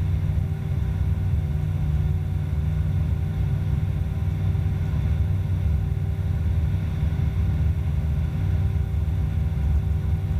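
Cabin drone of an Evektor SportStar light sport aircraft in flight: its Rotax 912 four-cylinder engine and propeller running steadily, a low rumble with a steady hum over it.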